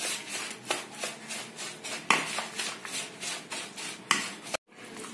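Wire whisk stirring and scraping a thick, dry mix of gram flour, semolina and curd in a bowl, in quick regular strokes about four a second. The sound cuts out suddenly for a moment about four and a half seconds in.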